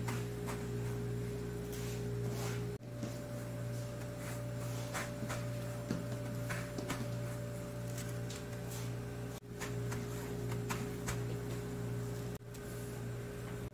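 Hands pressing and rolling dough rolls through a steel tray of breadcrumbs: faint crumbly rustling and scratching over a steady low machine hum. The sound breaks off for an instant three times.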